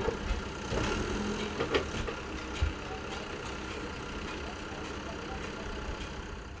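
Backhoe loader's diesel engine running steadily at idle, with a few sharp knocks and scrapes of shovels working rubbish close by.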